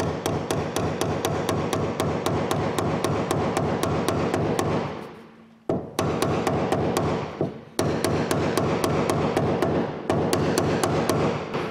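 Hammer tapping fast on a drift against the metal locking ring of a VW Golf's fuel pump/sender unit, driving the ring round to tighten it on the tank. It is rapid metal-on-metal knocking at about five taps a second, with two short pauses partway through.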